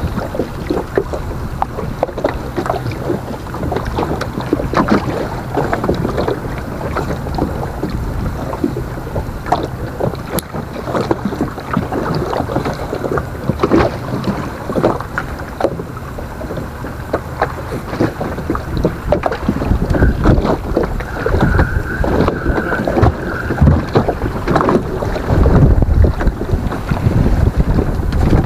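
Wind buffeting the microphone over choppy water slapping against the side of a small wooden boat, with many short slaps and knocks; the wind rumble grows heavier in the last several seconds.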